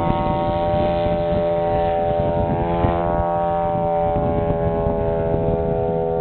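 The 3W-275 gas engine of a 50% scale Edge aerobatic model airplane running at high throttle, holding one steady high buzzing pitch with strong overtones.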